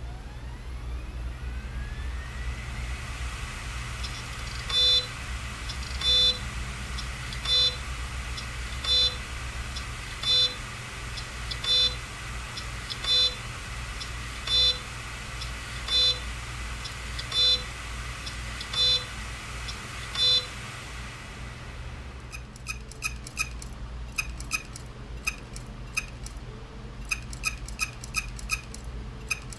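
Seagate hard disk drive spinning up with a rising whine, then giving a loud click with a short tone about every one and a half seconds, a dozen times. About 22 seconds in the whine stops and a faster, sharper clicking follows, several clicks a second. This repeated clicking is the sign of a failing drive.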